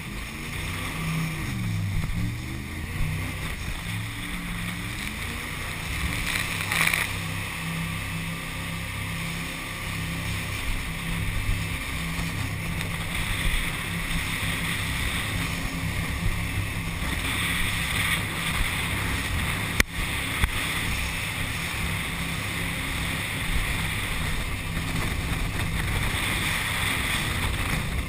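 Jet boat engine running hard, with rushing water spray and wind on the microphone. The engine pitch dips and rises a couple of times in the first few seconds, and there is a single sharp knock about twenty seconds in.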